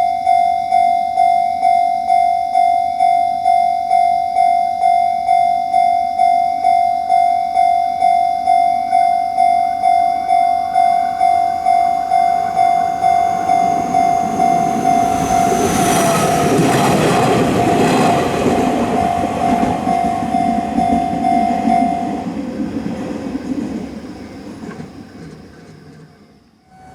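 Japanese railway level-crossing alarm ringing its repeated 'kan-kan' dings at a steady pace. About fifteen seconds in, a train passes with a rising rush of wheel and motor noise; the alarm stops about 22 seconds in, and the train's noise fades away.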